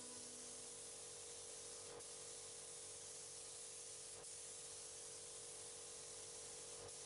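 Gravity-feed spray gun hissing steadily as it sprays a coat of paint over a car roof.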